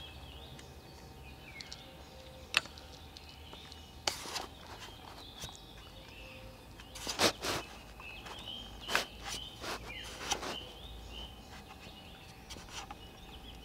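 Quiet outdoor ambience with short bird calls, broken by several sharp clicks and knocks, the loudest a little over two seconds in and about seven seconds in.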